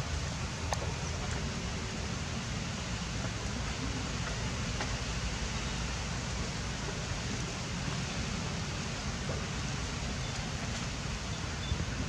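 Steady outdoor background noise: an even hiss with a low rumble underneath and a few faint ticks.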